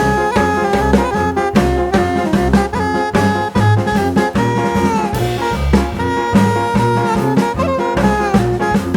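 Background music: an upbeat jazz-swing track with saxophone or brass over a drum kit.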